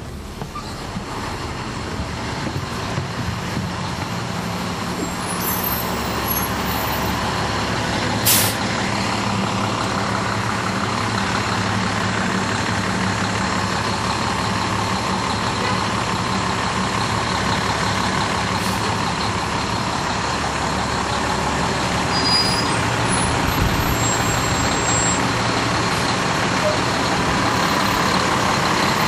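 Caterpillar C13 ACERT inline-six diesel of a 2009 NABI 416.15 (40-SFW) transit bus, heard from the rear seats inside the bus. The engine grows louder over the first few seconds, then runs steadily with road noise. There is a brief sharp hiss about eight seconds in.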